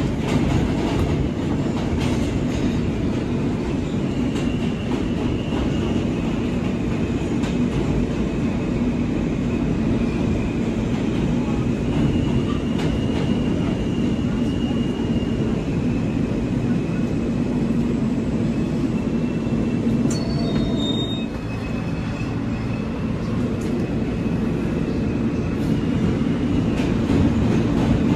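New York City subway train running through a tunnel: a steady low rumble of wheels on rail, with occasional clicks and a faint high wheel squeal that drifts in and out.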